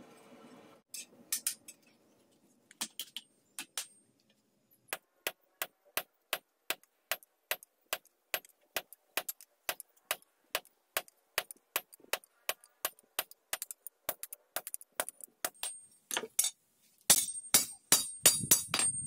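Hand hammer striking hot blade steel on an anvil: a long run of evenly spaced light strikes at about three a second, then heavier, faster blows with a high metallic ring near the end. A steady hum cuts off about a second in.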